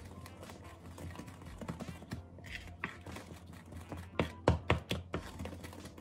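Wooden spoon stirring a thick whipped-topping and condensed-milk filling in a glass bowl: irregular clicks and taps, with a cluster of louder knocks about four to five seconds in. The cook reads the crackle of the stirring as unmixed bits of Cool Whip, which fade once it is fully incorporated.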